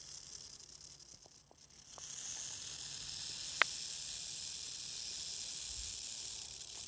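Eastern diamondback rattlesnake rattling its tail in a steady high buzz, the defensive warning of a coiled snake. The buzz grows louder about two seconds in, and a single sharp click sounds a little after the middle.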